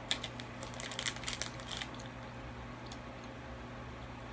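Small clicks and crinkles from a plastic gummy-candy wrapper being handled while Trolli gummy candies are chewed, most of them in the first two seconds.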